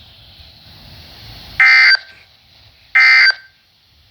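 Emergency Alert System (SAME) data bursts from NOAA Weather Radio: two short, loud, buzzy digital screeches about a second and a half apart, the end-of-message signal that closes a severe thunderstorm warning. Faint radio hiss fills the gaps.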